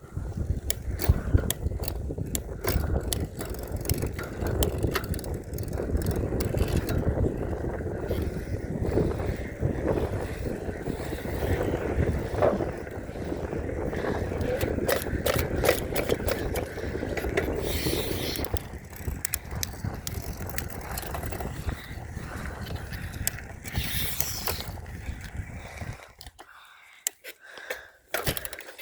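Mountain bike being ridden: a steady rumble with rattling and clicking from the tyres and drivetrain, dying down about two seconds before the end.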